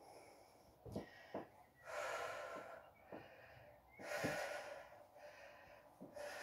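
A woman breathing hard through a standing leg exercise: two long breaths about two seconds apart, with a few soft thuds of her trainers landing on the floor between them.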